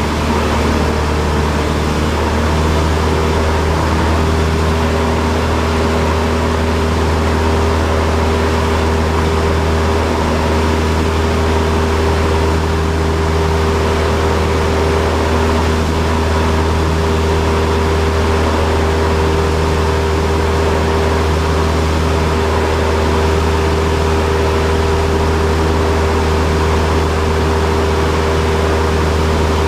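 Cessna 172's piston engine and propeller droning steadily, heard from inside the cockpit, with no change in power.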